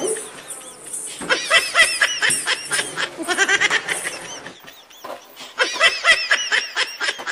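High-pitched laughter in three bursts of rapid giggling, with short pauses between them.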